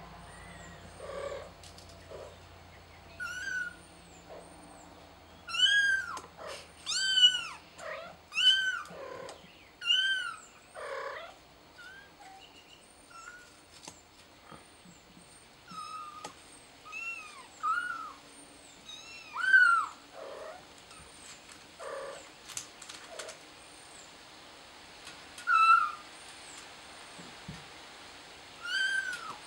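A young kitten meowing over and over in high-pitched calls for help, each meow rising and then falling in pitch, with short pauses between them.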